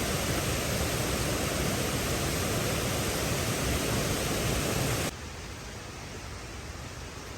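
Waterfall's rushing water, a dense steady roar of noise that cuts off abruptly about five seconds in, leaving a quieter steady hiss.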